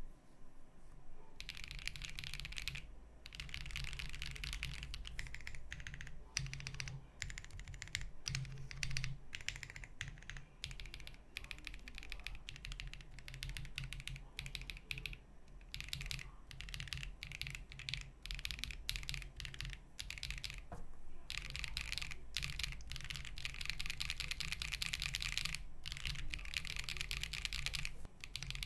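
Monsgeek M1 75% mechanical keyboard being typed on at a steady, continuous pace, a dense run of keystroke clicks. There are brief pauses about 3, 15 and 21 seconds in.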